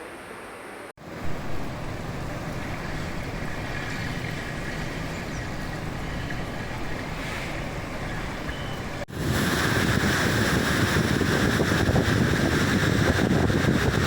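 Steady rushing noise of floodwater and heavy rain. It is broken by two abrupt cuts, about a second in and about nine seconds in, and the last stretch is louder.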